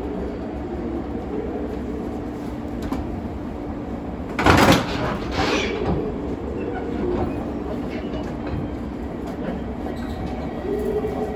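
Two JR Kyushu 813 series electric train sets coupling: a loud sharp clank as the automatic couplers meet about four and a half seconds in, then a shorter burst of noise about a second later, over the steady hum of the trains.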